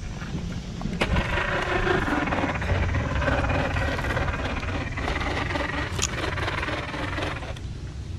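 Radio-controlled scale rock crawler's electric motor and gear train whining under load as it climbs over tree roots, with tyres scraping on bark. The whine starts about a second in and drops away near the end, over a steady low rumble.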